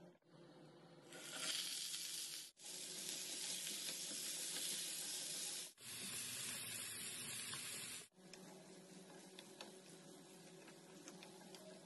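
Food sizzling as it fries in a hot pan, a steady hiss that breaks off sharply for an instant three times and is quieter for the last few seconds.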